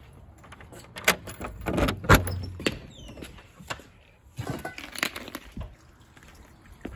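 A door's lever latch clicking and the door knocking as it is opened and closed, the loudest a thump about two seconds in, followed by rustling and footsteps.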